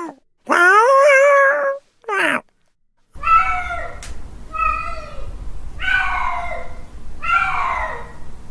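Male cat yowling its mating call: one long drawn-out yowl and a short one, then, from about three seconds in, a run of shorter falling yowls about every second and a half over a low hum.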